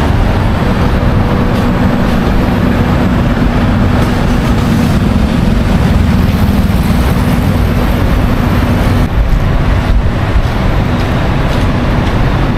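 Loud, steady street noise from motor traffic, with a nearby vehicle engine humming low until about nine seconds in.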